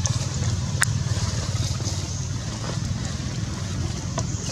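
Steady low rumble of outdoor background noise, with a sharp click about a second in and a fainter click near the end.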